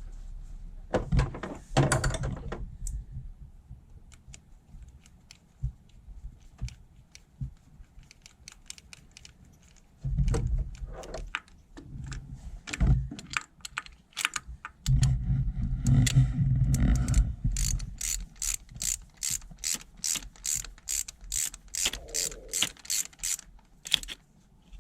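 Hand ratchet clicking at about four clicks a second through the last several seconds, running down the 10 mm bolt that holds a VVT solenoid; earlier come a few short clattering bursts of tools and parts being handled.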